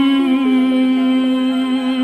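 Background vocal music: a hummed melody holding one long steady note.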